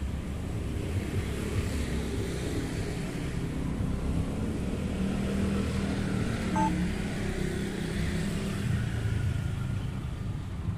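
Steady low rumble of motor vehicles running nearby, with a short high beep about six and a half seconds in.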